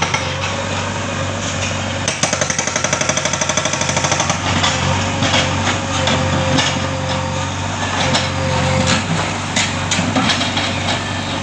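Hydraulic rock breaker on a JCB backhoe hammering rock in rapid bursts of blows, about ten a second, with irregular knocks between bursts. The backhoe's engine runs steadily underneath.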